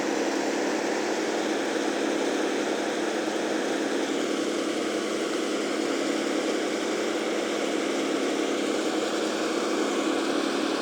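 Wood chipper's engine running steadily, a low even drone that does not change.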